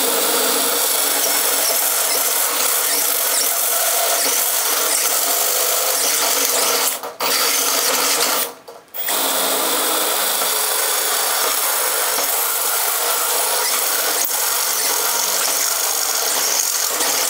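Cordless-style 12-volt drill, powered by a cord, running a step drill bit through the steel wall of a cabinet. The drill runs steadily, with a brief stop about seven seconds in and a slightly longer pause a moment later.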